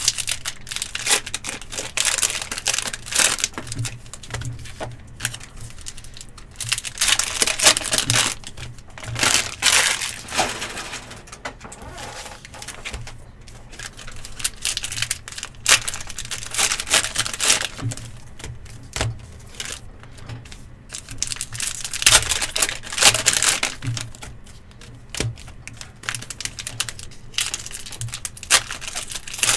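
Trading card pack wrappers being torn open and crinkled in bursts every few seconds, with light clicking of cards being handled in between.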